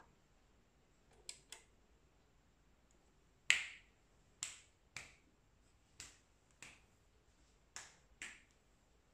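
A series of sharp clicks with short ring-outs: two faint ones, then seven louder ones, mostly in pairs about half a second apart. The first of the louder clicks is the loudest.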